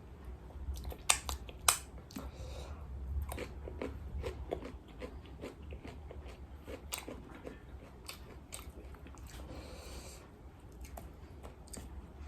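Close-up crunching and chewing of crisp fried chicken, with sharp crackles from biting through the breaded crust, loudest about a second in.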